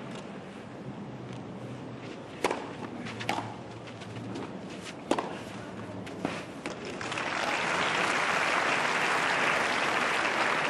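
Tennis rally: a few sharp racket-on-ball strikes at uneven spacing, then crowd applause from about seven seconds in as the point ends.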